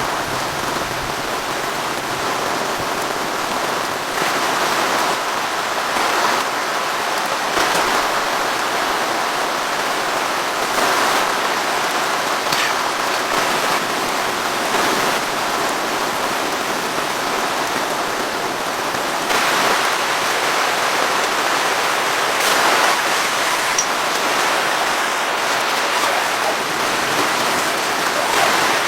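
Steady rain falling, a dense even hiss with brief louder swells now and then and the odd sharp drop tick.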